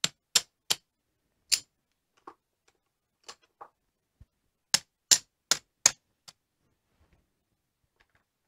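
Casino chips clicking sharply as the losing hard-way bets are picked up off a craps layout after a seven: about four clicks in the first second and a half, a few faint ones, then a quick run of four or five clicks a little past the middle.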